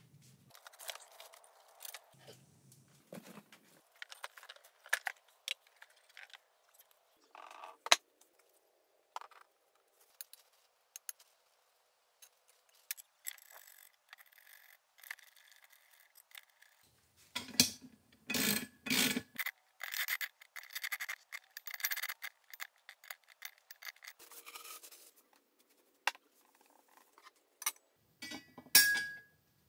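Metal parts of a Hafco BD 325 drill press being handled during assembly: scattered clinks and knocks of bolts and washers, with scraping and rubbing of metal parts. The clatter grows busier in the second half, with a few sharp knocks standing out.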